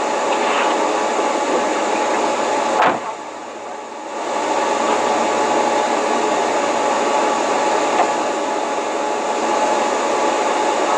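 Steady rushing noise with a faint hum. A sharp knock about three seconds in is followed by about a second of quieter sound before the noise returns.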